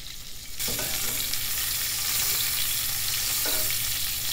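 Marinated picanha steaks sizzling on the hot grate of a Big Green Egg kamado grill as they are laid down with tongs. The sizzle jumps louder about half a second in and then holds steady.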